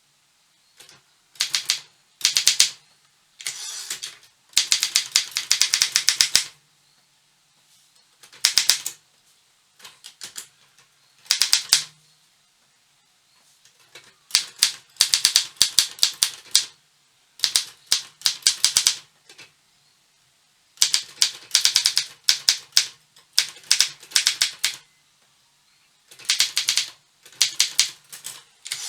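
Optima Elite 3 manual typewriter being typed on: runs of rapid key strikes lasting a second or two, with short pauses between runs.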